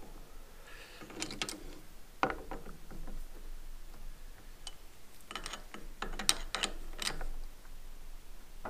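Chuck key working the jaw screws of a four-jaw independent lathe chuck while a metal workpiece is set against the jaws: scattered metallic clicks and clinks in several short clusters, the busiest stretch after the middle.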